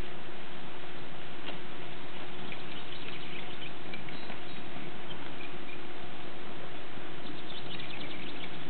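Soft hoofbeats of a Tennessee Walking Horse gaiting on a dirt arena, under a steady hiss with a faint low hum. Clusters of short, high squeaky chirps come about two to four seconds in and again near the end.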